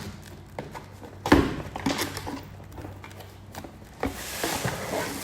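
A cardboard product box being opened and handled: scattered knocks and taps, the loudest about 1.3 s in, then rustling of packaging from about 4 seconds in.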